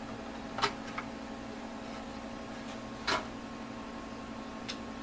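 Plastic inner cover of a Sony/Tektronix 305 oscilloscope being handled and lifted off the chassis: a sharp click about half a second in, a lighter tick at one second, and a longer knock about three seconds in, over a steady low hum.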